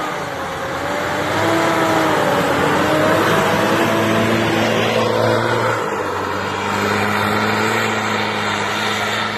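A 4x4 pickup's engine working hard through deep snow, its revs wavering up and down and then settling lower about six seconds in. Under it runs the hiss of the tyres churning snow.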